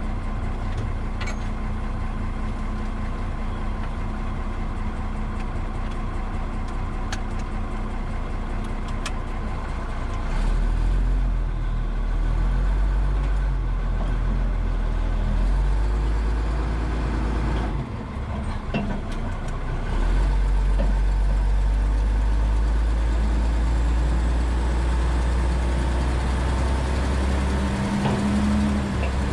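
M936A2 military wrecker's diesel engine heard from inside the cab, running through a newly installed muffler. It idles at first, then rises to a heavier, louder rumble under load about ten seconds in as the truck pulls away, eases off briefly a little past halfway, and pulls again.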